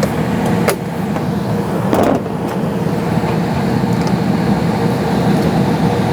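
Gas furnace running in heating mode with its blower on: a steady low hum. A sharp click about a second in and a short rustle about two seconds in.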